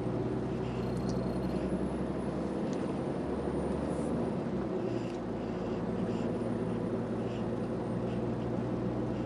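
Steady diesel engine and road noise of an articulated lorry heard from inside the cab while driving, a constant low hum, with a faint tick repeating a little under once a second.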